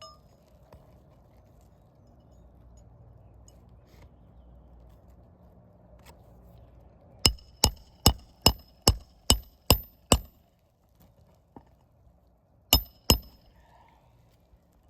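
Hammer blows ringing on metal while repairing an asphalt roof shingle: eight quick strikes about two and a half a second, then a pause and two more.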